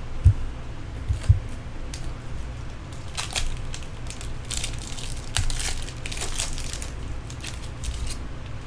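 Foil trading-card pack wrapper being torn open and crumpled by hand, in irregular crackling bursts, with a couple of dull knocks from handling about a second apart near the start.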